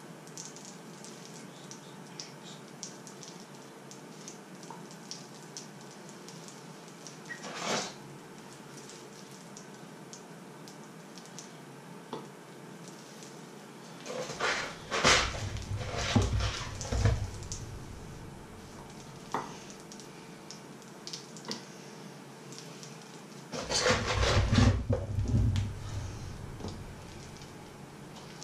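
Kitchen handling sounds of frozen fish fingers being taken from a cardboard box and laid in a frying pan: a single knock, then two bursts of cardboard rustling and knocks on the pan, one midway and one near the end. A faint crackle from the pan runs underneath.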